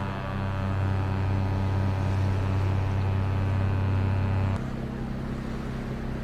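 Cruise ship horn sounding one long, steady, low blast on a single note that cuts off sharply after about four and a half seconds. A low steady hum continues underneath.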